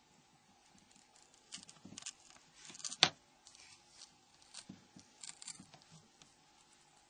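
Small handling noises of the glued-in flip circuit board (flip PWB module) of a Nokia N93 being peeled up from its adhesive: scattered light ticks and scraping, with one sharp click about three seconds in.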